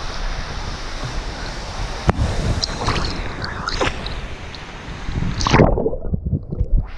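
Waterfall water rushing in a steady hiss, with wind rumbling on the microphone. There is a sharp knock about two seconds in. Near the end the hiss briefly cuts out, leaving only a low rumble.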